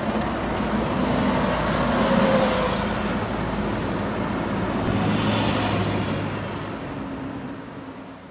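Steady rushing, rumbling noise with a faint low hum. It swells slightly early on and then fades out over the last three seconds.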